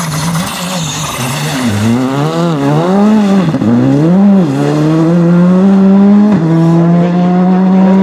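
Rally car engine at high revs. Its pitch rises and falls several times, then holds high and climbs slowly, with a brief break like a gear change about six seconds in.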